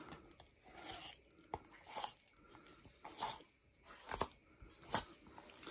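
Boning knife cutting and scraping along the bone of a raw whole chicken as skin and flesh tear away: a handful of short, faint wet cuts and scrapes, with one sharp click about one and a half seconds in.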